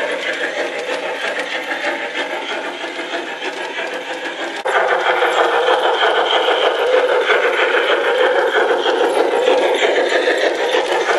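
Garden-scale model train running on outdoor track: a steady clatter of wheels over the rails with motor whirr. It gets suddenly louder a little under halfway through, as a model steam locomotive and its coaches pass close by.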